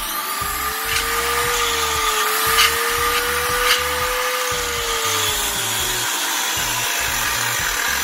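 Makita 5740NB corded electric circular saw switched on and running with its blade spinning freely, a steady whine over a rushing noise, with two brief sharp ticks in the middle. The running noise is heavy, which the repairman takes for bearings that need replacing.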